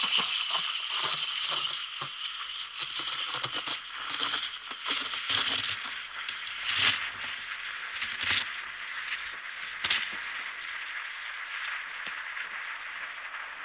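Coffee machine running: a steady hiss with a busy, irregular rattling and crackling of small clicks over it. The clicks thin out over the last few seconds while the hiss carries on.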